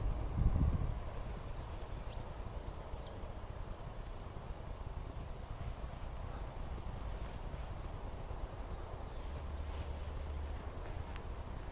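Small birds chirping, with many short, high calls and quick falling whistles scattered throughout, over a steady low rumble of wind and outdoor noise. A dull low thump about half a second in is the loudest moment.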